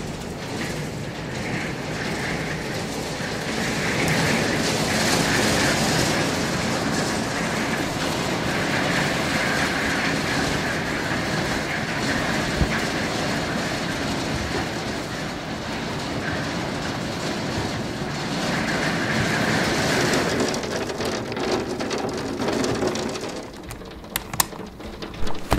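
Hailstones falling heavily, a dense steady patter and rattle on the ground and hard surfaces. Near the end the hail noise drops and a few sharp clicks come from the handle of a sliding glass door.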